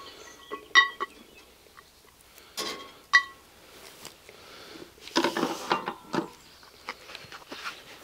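Steel lid lifter and cast-iron Dutch oven lid (Petromax FT3) clinking as the lid is lifted off the pot and set aside on a wire grill over a campfire. Two short ringing metal clinks, about a second in and about three seconds in, then a longer clatter around five to six seconds.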